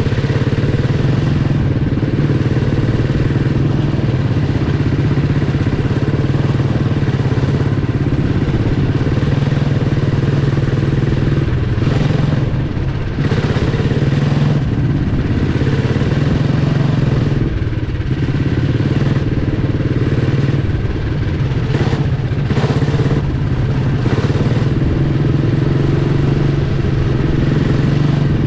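Single-cylinder Briggs & Stratton Animal four-stroke kart engine running flat out at a near-steady pitch, with a few brief dips in revs.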